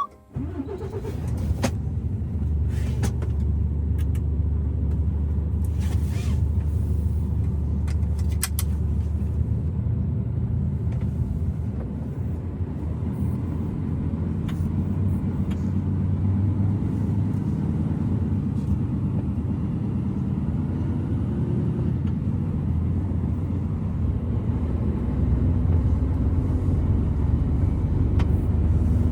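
Truck's diesel engine running with a steady low rumble, with a few sharp clicks in the first nine seconds.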